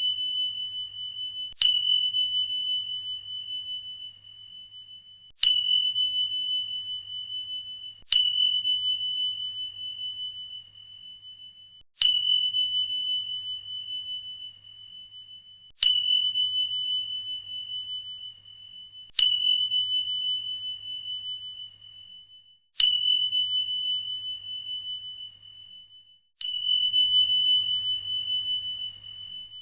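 A high, single-pitched bell ding struck eight times at uneven gaps of three to four seconds, each strike ringing out and fading.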